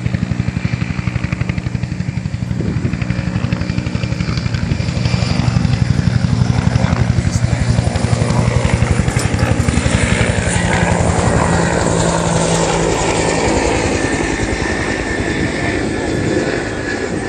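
Helicopter flying overhead, its rotor blades beating in a fast, even pulse. It grows louder toward the middle and eases off a little near the end.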